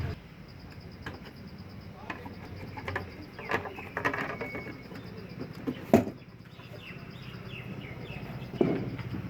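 Scattered clicks and knocks of hand tools and metal parts being handled, the loudest about six seconds in, with a few faint bird chirps a little after it.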